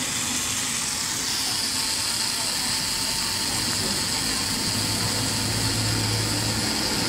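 Tattoo machine running with a steady motor buzz and hum while it works on skin, a higher hiss growing stronger about a second in.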